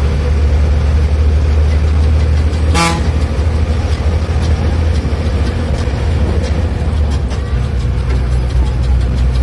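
Bus engine running with a steady low drone heard from inside the cabin, with a short horn toot about three seconds in and light rattles after it.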